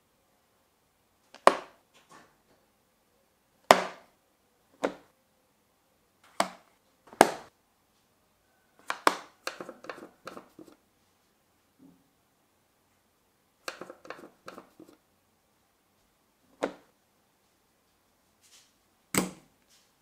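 Separate sharp clicks and clacks of metal typewriter parts being handled and worked with a screwdriver, with quiet gaps between them. There are quick runs of several clicks about nine to eleven seconds in and again around fourteen seconds.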